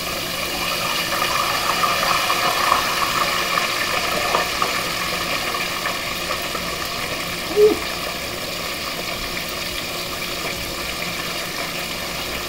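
Battered cod deep-frying in hot oil: a steady sizzle and bubbling. A short higher note is heard a little past halfway.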